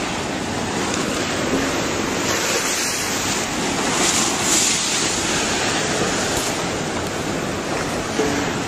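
Steady rushing noise of turbulent tsunami floodwater surging, swelling a little about four seconds in.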